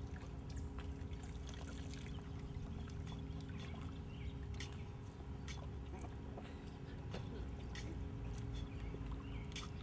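A thin stream of water trickling and splashing steadily into lake water, over a steady low rumble.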